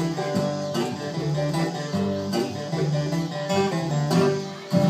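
Live bluegrass band playing an instrumental passage without singing: acoustic guitar strumming over upright bass notes.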